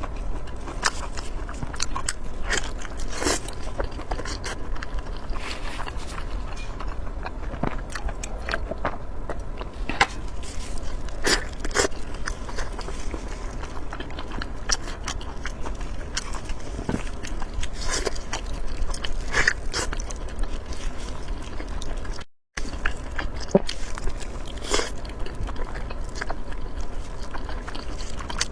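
Close-miked eating sounds: a person biting, chewing and crunching food, with many sharp wet clicks and crackles, and a moment of dead silence about three-quarters through.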